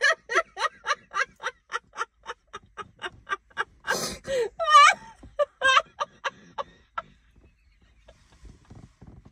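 Two women laughing helplessly: quick, rhythmic bursts of laughter about four a second, breaking into higher shrieks about four to five seconds in, then dying away into faint breathy gasps.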